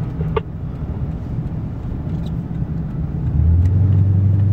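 Ford F350 pickup driving in four-wheel drive, a steady low engine and road rumble. About three and a half seconds in, a strong low drone comes in and it gets louder.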